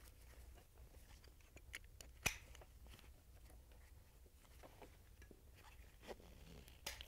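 Faint rustling and handling of the webbing straps and buckles of a short spinal immobilization device as its leg straps are fitted, with small scattered clicks and one sharp click about two seconds in.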